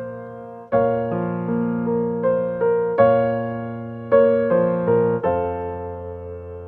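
Background piano music: soft chords and single notes struck and left to die away in a slow, gentle melody.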